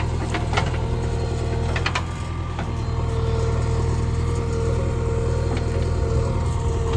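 JCB 3DX backhoe loader's diesel engine running steadily, with a steady higher whine over the engine note. A few short sharp cracks or clicks come about two seconds in.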